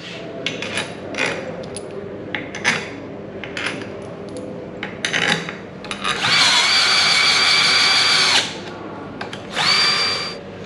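Light clicks and knocks of metal parts being handled on an aluminium electric-motor housing, then a power drill/driver spins up and runs steadily for about two seconds, stops, and gives a second shorter spin near the end.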